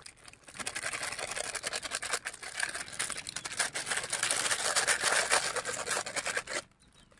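Plastic spice-powder sachets crinkling and rustling in the hands as they are emptied onto a steel plate: an irregular, crackly rustle that stops abruptly near the end.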